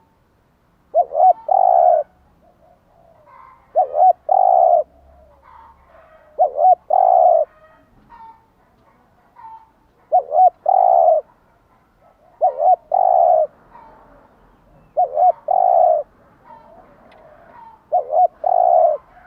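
Spotted dove cooing its song: seven phrases, each two quick coos followed by a longer drawn-out coo, repeated every two to three seconds. Faint calls of other birds are heard between the phrases.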